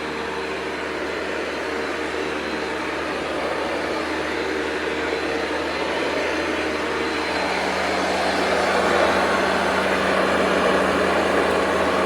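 Hoover Convertible U4345 upright vacuum cleaner running steadily, with a continuous motor hum that grows a little louder about seven seconds in.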